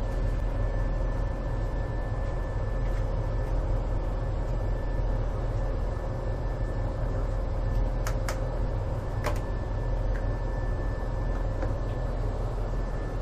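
Steady low drone of a ship's machinery running, with a constant hum and a few fixed tones over it. A few light clicks about eight and nine seconds in come from the plastic rice paddle knocking the plate.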